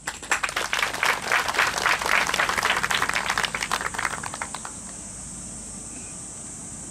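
Golf gallery applauding a player just announced on the tee, many hands clapping, the clapping thins out and stops about four and a half seconds in.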